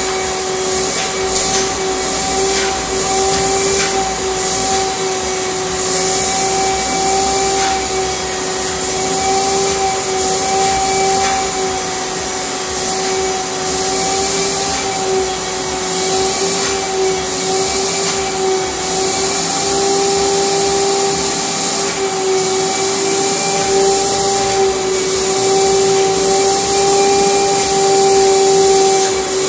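Vacuum cleaner running steadily with a constant motor whine, its airflow hiss rising and falling as the nozzle is worked over a bulldog's coat to pull out loose hair.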